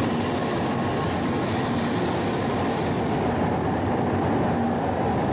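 N700-series Shinkansen train pulling out of the platform: a steady rumble of wheels and running gear with a faint low hum. A high hiss fades about three and a half seconds in as the last car passes.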